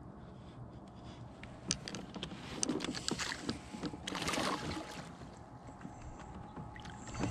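Handling noises as a small hooked smallmouth bass is brought aboard a kayak: scattered sharp clicks and knocks, then a brief rush of water-like noise about four seconds in.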